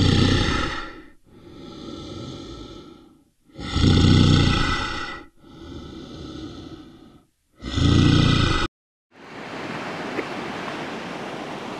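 An animal breathing heavily in a rhythmic cycle: three loud breaths about four seconds apart with softer breaths between. It cuts off abruptly just before nine seconds in, and a steady hiss follows.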